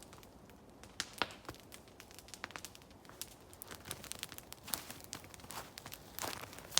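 Wood fire crackling, with irregular sharp pops and snaps that grow thicker from about a second in.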